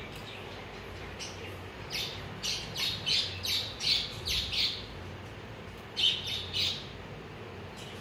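Alexandrine parakeets (Kashmiri parrots) squawking: a quick run of about nine short, high calls, some three a second, starting about two seconds in, then three more about six seconds in.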